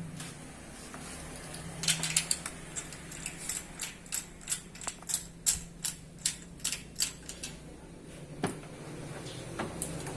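Small metal tools or parts clinking and clicking, about two sharp clicks a second for several seconds, over a steady low hum.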